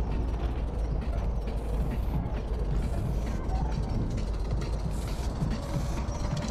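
Aerosol spray paint cans in use: short bursts of spray hiss and rattling, over a steady low rumble.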